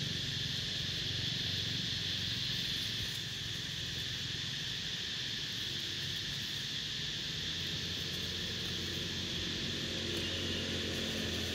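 Steady chorus of insects, a continuous high-pitched drone that does not break or change, over a low steady hum.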